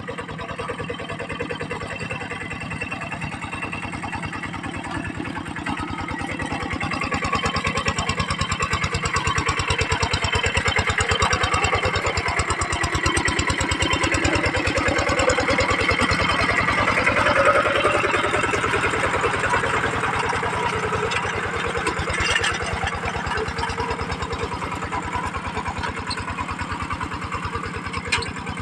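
Tractor's Kubota diesel engine running steadily with a fast, even chugging beat, growing louder about a quarter of the way in and easing back a little past the middle, as if working under load. Two sharp knocks sound in the last third.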